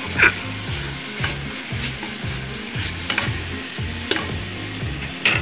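Onions, tomatoes and whole spices sizzling in oil in a pressure cooker while a metal spoon stirs them, the spoon scraping and clicking against the pot about once a second.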